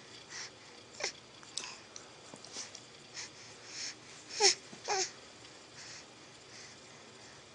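A string of short, soft vocal noises and snuffles, about eight in all, with the loudest two close together about four and a half seconds in.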